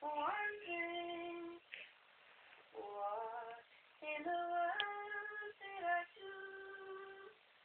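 A 52-year-old woman singing solo with no accompaniment, in four short phrases of held notes with brief pauses between them.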